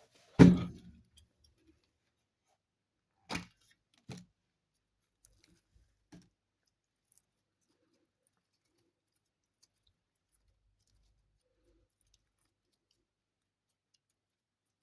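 Slime being handled by hand: one loud slap about half a second in, then four short sticky clicks and pops spread over the next few seconds, then near silence.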